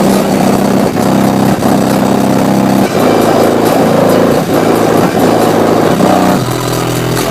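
Car subwoofers playing loud bass notes that step in pitch every half second or so, with the bare, undeadened roof panel buzzing and rattling along with the bass.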